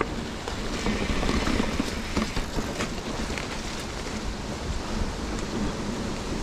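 Mountain bike riding a dry, leaf-covered dirt trail: steady tyre noise over the leaves and ground, scattered light knocks and rattles from the bike, and wind on the microphone.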